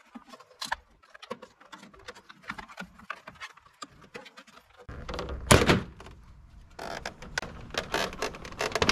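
Plastic trim clips snapping loose and plastic rattling as the grille's side trim piece is pried off a Chevrolet Silverado HD by hand. Small clicks and creaks at first, one loud snap about five and a half seconds in, then a quick run of clicks near the end.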